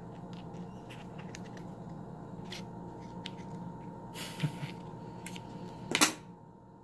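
Small scissors snipping open leathery ball python eggs while the eggs are handled: scattered faint snips and rustles over a steady hum, with a short rustle about four seconds in and a louder one about six seconds in.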